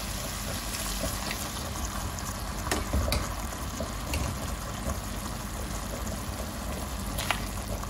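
Pan of scampi, mussels and cherry tomatoes simmering in added pasta cooking water: a steady bubbling hiss with a few sharp pops, as the water cooks down into a sauce.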